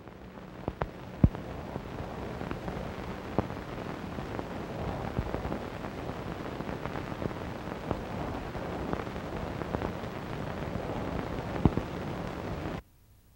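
Steady crackling hiss with scattered sharp pops. It fades up over the first couple of seconds and cuts off abruptly near the end.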